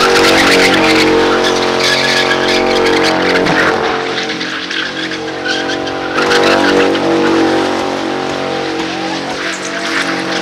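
Muscle car doing a burnout: the engine is held at high revs while the rear tyres spin and squeal on concrete. The revs ease off a little past the middle and then pick up again.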